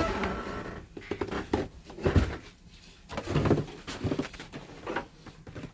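Snow shovel scraping and throwing snow in a series of about six uneven strokes, one landing with a heavier thump about two seconds in.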